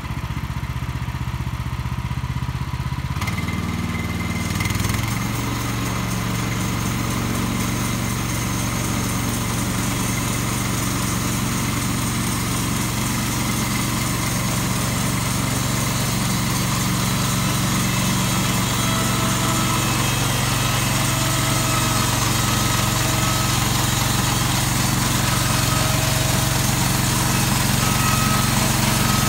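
An engine running steadily. A few seconds in, its note shifts and it grows louder, then it carries on evenly.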